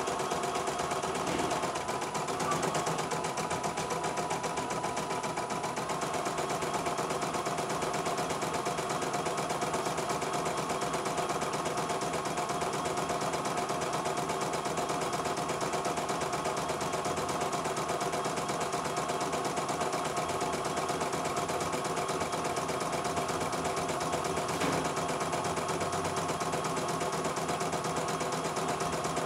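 CNY E900 portable embroidery machine stitching a design, its needle running at a fast, even rate while the embroidery unit steps the hoop along.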